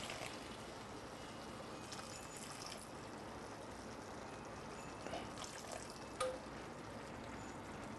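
Reserved pasta water poured from a glass measuring cup into a nonstick skillet of chicken, vegetables and creamy sauce, a faint trickle as a spatula stirs it in, with a light tap about six seconds in.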